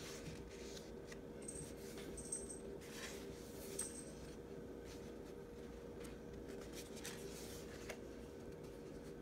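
Pages of a paper workbook being turned and rustling, with a few soft flicks in the first four seconds, over a faint steady low hum.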